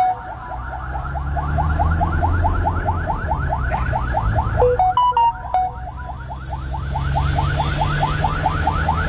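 Ambulance siren in yelp mode: a fast rising sweep repeating about five times a second, broken about five seconds in by a short run of stepped steady tones. A vehicle engine hums low underneath.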